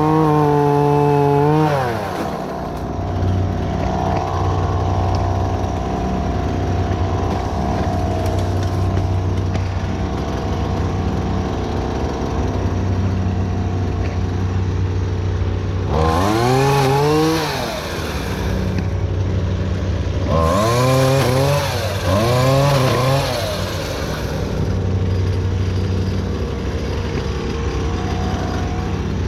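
Small two-stroke chainsaw engine idling, revved up hard and let back down again at the start, once about halfway through, and twice in quick succession a few seconds later.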